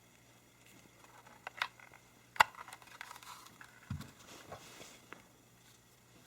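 Handling noises from unboxing a small device: scattered light clicks and taps, with one sharp click about two and a half seconds in and a dull thump about a second later.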